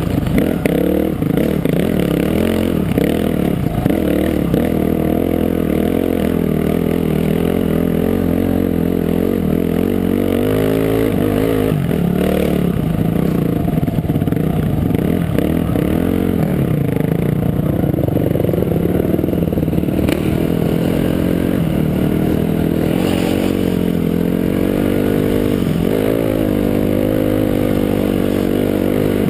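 Dirt bike engine close to the microphone, its pitch rising and falling with the throttle, with a few sharp revs. Knocks and rattles come from the bike bouncing over rocks, mostly in the first few seconds.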